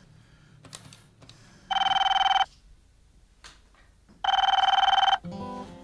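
A telephone ringing twice: two electronic trilling rings with a gap of nearly two seconds between them. Music begins near the end.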